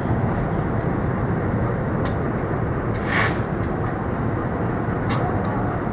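Passenger train coaches rolling into a station, a steady rumble of wheels on rail with a few sharp clacks and a short hiss about three seconds in.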